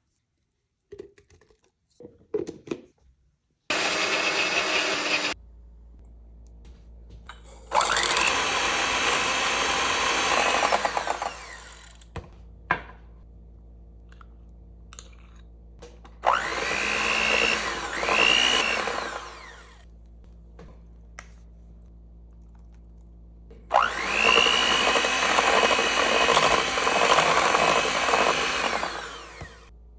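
Electric blender run in four short bursts. Each burst spins up with a rising whine, runs a few seconds and winds down, with light clicks of handling between runs.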